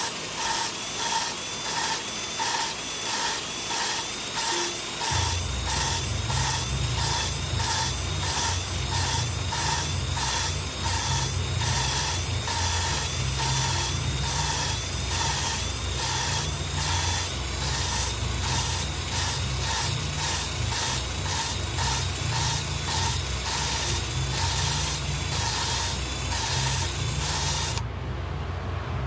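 Valve being hand-lapped into its cylinder-head seat with grinding compound: a rhythmic gritty rasp as the valve is twisted back and forth, about two to three strokes a second. A low rumble joins about five seconds in.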